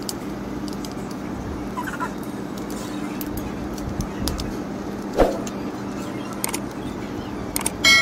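Small screwdriver clicks and ticks as screws are tightened on a switchboard panel, with a knock about five seconds in, over a steady low hum. A ringing metallic clang starts right at the end.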